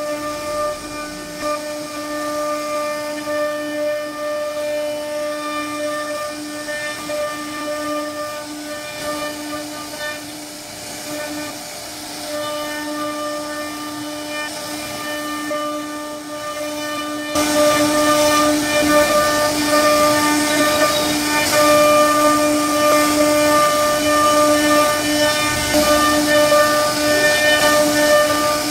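CNC router spindle running with a steady high whine as its bit carves a relief pattern into a wooden door panel, with hissing cutting noise from the wood. About two-thirds of the way through the cut gets louder and rougher.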